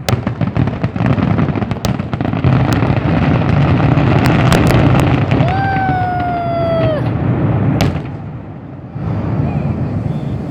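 Fireworks finale: a dense barrage of rapid bangs and crackling that stops about eight seconds in. A held, slightly falling tone sounds over it shortly before the end.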